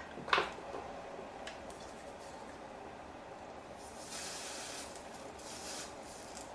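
Freeze spray hissing from an aerosol can in two short bursts about four and five and a half seconds in, frosting the capacitors on an iPhone 6S logic board to find the shorted one on the backlight power line. A brief knock near the start.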